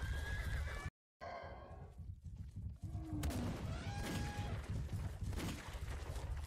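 Herd stampede sound effect: a steady low rumble of many running feet, with high pitched animal calls rising and falling over it several times. The sound cuts out completely for a moment about a second in.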